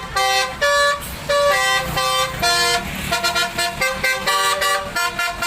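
Indonesian telolet bus horn, a multi-tone horn playing its quick stepped tune: a run of short held notes jumping up and down in pitch, several a second.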